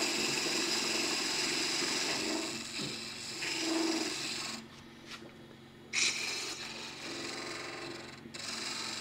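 A turning tool cutting a spinning wooden blank on a wood lathe: a steady shaving hiss that drops away about four and a half seconds in, a brief sharper cut about six seconds in, then lighter cutting until near the end.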